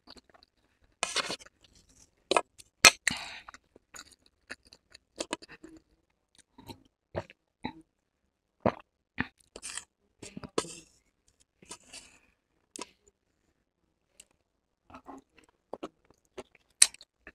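Close-miked chewing of noodles: scattered wet mouth smacks and clicks with short pauses between, and a louder slurp of noodles near the end.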